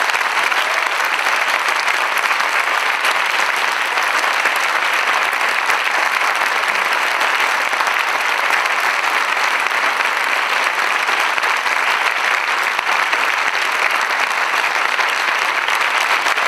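Audience applauding: many hands clapping in a steady, even wash of sound.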